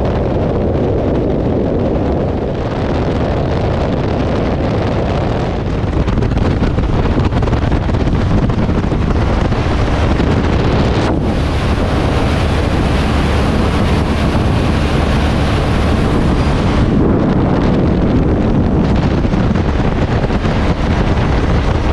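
Heavy wind noise buffeting a helmet or bike-mounted camera microphone on a BMW GS adventure motorcycle at highway speed, a steady roar with the engine and tyres droning underneath.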